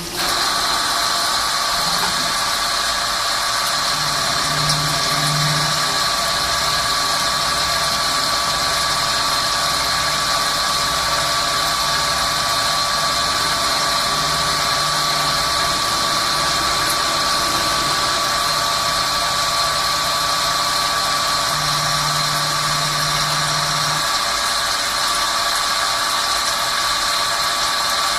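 Swiss-type CNC lathe running while machining a small bone screw: a steady machine hum and noise with two constant high-pitched whining tones.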